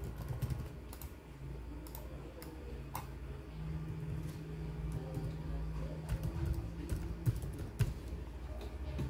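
Laptop keyboard keys being pressed: scattered single clicks over a low steady hum that grows stronger about a third of the way through.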